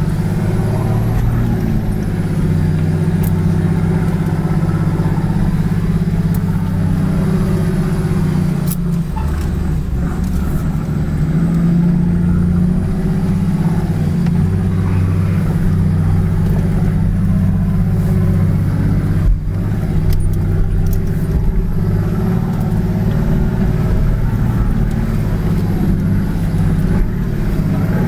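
Four-wheel-drive's engine running at low revs, heard from inside the cabin as the vehicle crawls over a rough dirt track, with a few sharp knocks and rattles from the body over the bumps.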